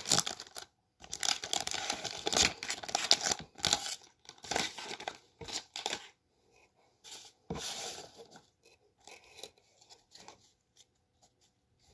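Wrapper of a baseball card pack being torn open and crinkled: a run of short rips and rustles, thinning to a few light rustles and clicks in the last few seconds.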